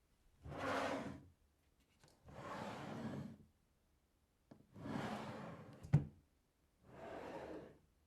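Wooden drawer sliding open and shut four times, each a scraping slide of about a second. The third slide ends in a sharp knock as the drawer bangs shut.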